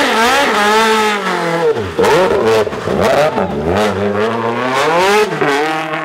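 Renault Clio II rally car's engine revving hard out of a tight hairpin. Its pitch rises and falls several times as the throttle is worked.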